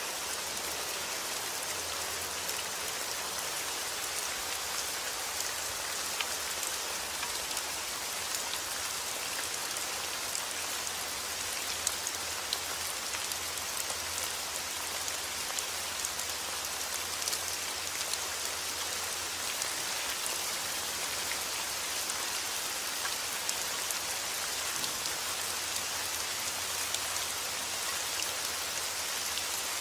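Heavy rain falling steadily, a dense hiss of drops hitting surfaces with many sharp individual drop taps.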